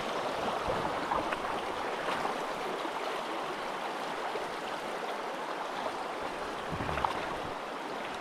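River water rushing steadily over a slightly high backcountry stream, with a few faint clicks or splashes and one sharper knock about seven seconds in.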